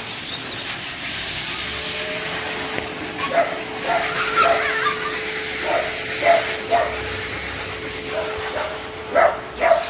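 Dog barking in short barks that come in several clusters, over a steady faint hum.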